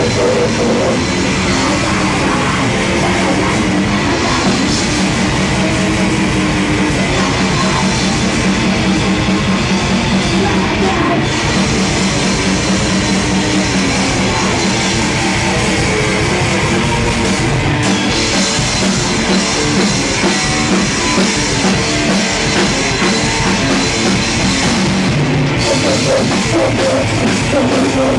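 Grindcore band playing live at close range: distorted guitar and fast drumming, loud and continuous.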